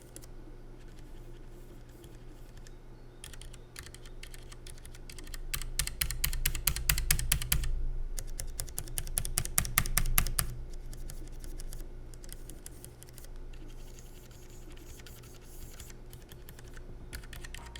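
Typing on a Keychron K3 low-profile optical mechanical keyboard: a few scattered keystrokes, then a fast dense run of key clicks for about five seconds in the middle, thinning out to occasional presses near the end.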